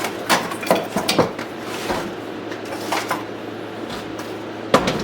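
Hard objects being handled: a run of sharp clinks and knocks in the first couple of seconds, a few more later, and one louder knock near the end, over a steady low hum.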